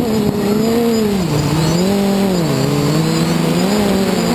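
An FPV drone's motors and propellers whine steadily, the pitch sagging and recovering several times as the throttle changes, with a deep dip about a second in and another about halfway through.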